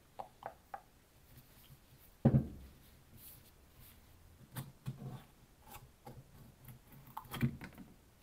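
Small metal pick clicking and scraping on a clutch slave cylinder as its rubber boot's retention clips are pried off, with one sharp knock about two seconds in and a cluster of clicks and knocks near the end.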